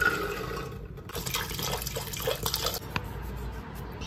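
Soaked red kidney beans and water going into an aluminium pressure cooker: a splashing pour with many small clicks of beans landing in the pot.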